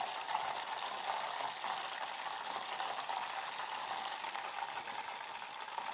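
Hot oil sizzling and bubbling steadily in a saucepan as wontons deep-fry and a batch is lifted out on a wire frying spoon.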